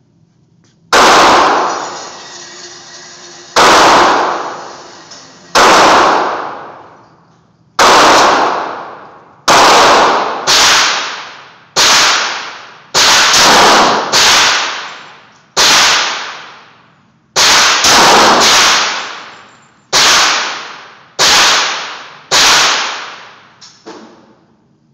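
Handgun fire: a string of about sixteen single pistol shots at uneven intervals, mostly one to two seconds apart, with a few quicker pairs. Each shot is followed by a long echoing decay.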